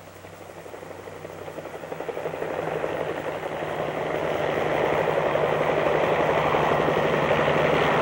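Low-flying Bell 47-type helicopters approaching, the rapid chop of their rotors over a steady engine drone growing steadily louder as they close in.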